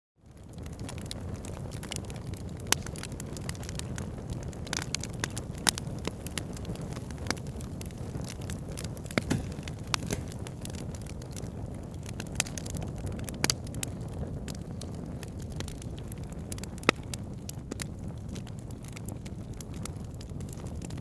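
Fire burning in a fireplace: a steady low rush of flames with irregular sharp crackles and occasional louder pops. The sound fades up from a brief silence at the very start.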